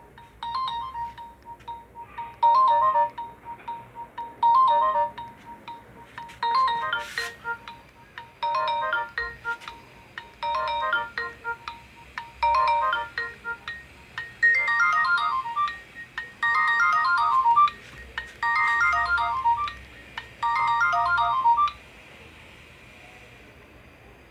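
Nokia N70 mobile phone playing a ringtone: a short electronic melody phrase repeated about every two seconds, stopping about 22 seconds in.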